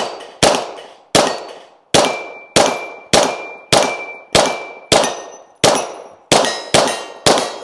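Glock 17 9mm pistol fired about a dozen times at an even pace, roughly one shot every two-thirds of a second, quickening slightly near the end. Each shot is followed by the ringing clang of a steel plate or popper being hit.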